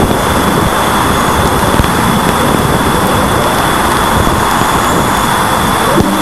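Voyager 2 Plasma Wave Subsystem wideband recording near Neptune, played as audio: a dense, steady rushing hiss, strongest in the low and middle range, with a steady high tone running through it.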